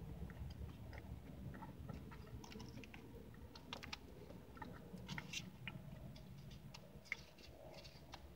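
Faint, irregular clicks and scrapes of a plastic fork in an aluminium foil pie tin, with soft chewing.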